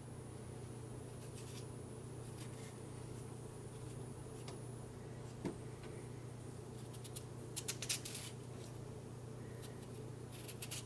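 Peeled potatoes being handled and cut with a knife on a plastic cutting board: a few soft clicks and taps, most of them bunched a little past the middle, over a steady low hum.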